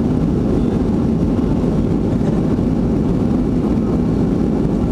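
Steady cabin noise of a Boeing 737-500 climbing after takeoff, heard from inside the cabin over the wing: the low, even drone of its CFM56-3 turbofan engines and the airflow.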